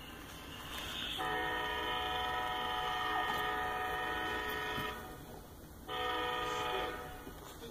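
CSX SD40-3 locomotive's air horn sounding for a grade crossing: one long blast lasting nearly four seconds, a brief pause, then a short blast of about a second. The horn holds several notes at once over the low rumble of the approaching train.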